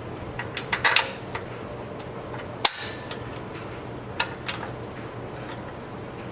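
Hand work on small metal engine parts and fasteners: scattered light clicks and knocks, with one sharp, loud click a little under three seconds in.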